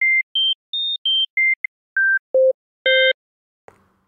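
Synthesized pure sine-wave tones, the components of one complex sound, sounded one at a time as short beeps that step up in pitch and back down to a low tone. About three seconds in, all five sound together as a single chord.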